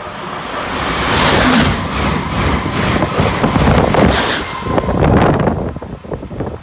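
Amtrak Acela high-speed trainset passing through the station at speed: a rushing of wheels on rail and air that builds quickly, stays loud for several seconds, then falls away near the end as the last car clears.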